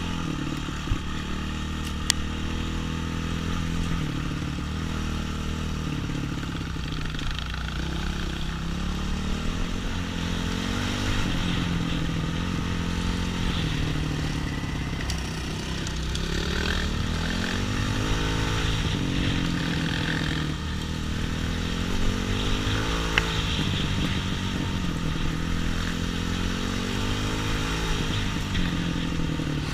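Trail motorcycle engine running as it is ridden, its pitch rising and falling again and again with the throttle, with a few sharp knocks.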